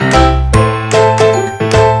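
Background music with a steady beat, a new note or chord struck about every half second over a sustained bass line.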